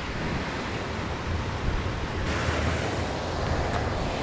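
Steady rush of creek water flowing through the current below a spillway dam, turning a little brighter and hissier about halfway through.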